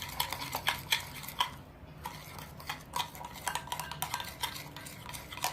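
A spoon knocking and scraping against a bowl of slime mix, a string of irregular sharp clicks with a short ring, tapped to shake off sequins stuck to the spoon.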